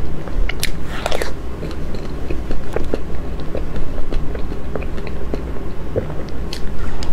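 Close-miked eating of soft cream cake: chewing and wet mouth sounds heard as many short clicks, a denser cluster about a second in, over a low steady hum.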